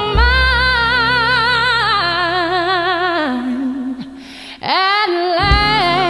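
Music: a woman singing a slow love song, holding long notes with wide vibrato over a soft low accompaniment. The line falls away about two-thirds through and a new phrase rises.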